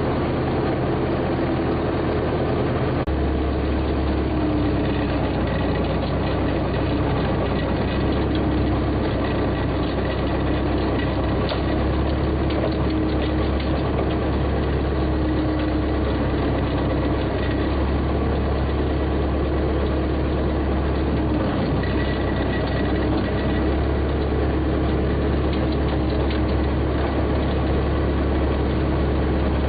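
Tractor engine running steadily. Its low note gets louder about three seconds in and dips briefly around twenty-two seconds.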